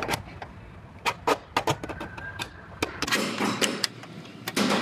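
Steel scribe scratching a cut line into overlapping sheet-metal body panels: scattered sharp clicks and taps, then two stretches of rapid rasping scratching, one about three seconds in and another near the end.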